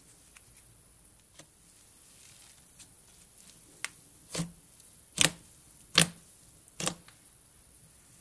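Fluffy pink cloud butter slime being squeezed and kneaded by hand, giving off short sharp crackling pops as the airy slime is pressed. A few faint clicks come first, then four louder pops less than a second apart in the second half.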